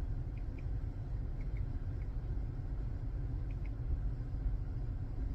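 Steady low rumble of a car heard from inside the cabin, with a few faint light ticks.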